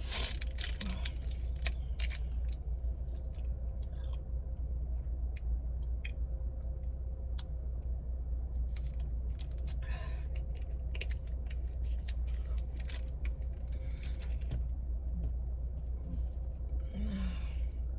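Close-miked eating and drinking mouth sounds: scattered small clicks and lip smacks with a few short noisy patches, over a steady low hum in a car cabin.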